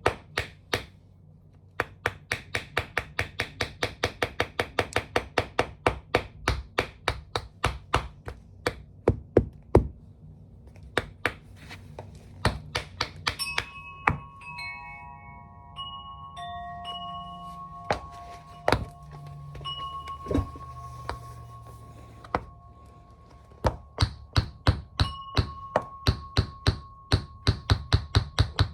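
Tap shoes tapping on a hard floor in quick, even strokes, about four to five taps a second. In the middle the tapping stops for several seconds, with only a few single taps and several held, chime-like notes, then the quick tapping starts again near the end.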